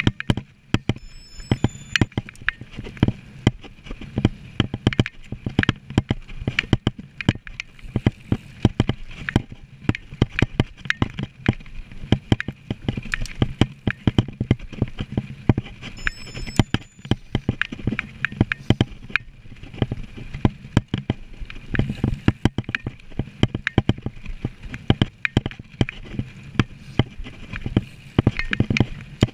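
Mountain bike ridden fast over a rough dirt trail: a dense, irregular clatter of knocks and rattles over a steady low tyre rumble.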